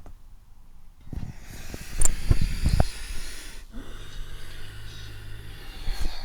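A long breath blown out close to the microphone, hissing for about two and a half seconds with gusts thumping on the mic, followed by a faint low hum.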